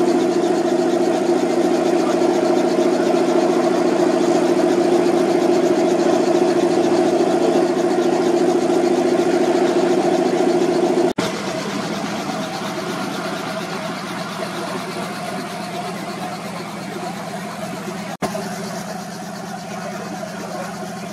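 Light aircraft's piston engine running steadily. It breaks off for an instant about 11 seconds in and continues noticeably quieter, with another brief break near the end.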